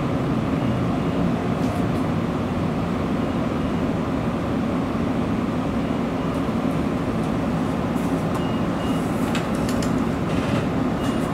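Nishitetsu electric train heard from inside the front car, behind the cab: a steady rumble of wheels and running gear on the track, with a few faint clicks.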